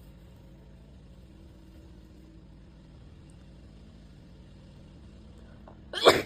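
A steady low hum, then near the end one loud, sudden sneeze from a young woman with allergic sneezing, one of a long run of sneezes.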